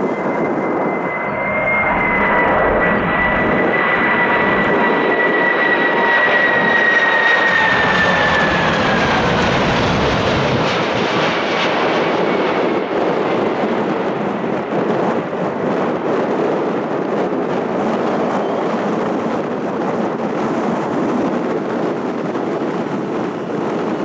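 Boeing 747's four jet engines on final approach as it passes overhead: a high whine over a broad jet rumble. The whine slides down in pitch and fades about eight to ten seconds in as the aircraft goes by, leaving a steady rumble as it flies toward the runway.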